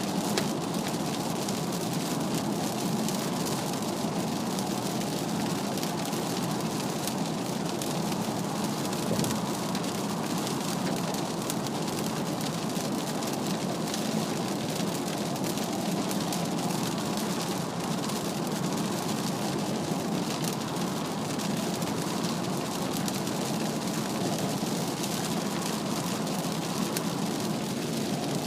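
Steady cabin noise of a Mazda CX-3 at expressway speed in heavy rain: tyres hissing on the wet road and rain on the body, an even wash with no changes.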